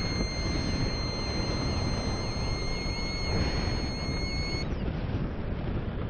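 Wind rushing over the microphone of a paraglider in flight on final approach, a steady noisy rush. A thin steady high tone sounds over it and stops about four and a half seconds in.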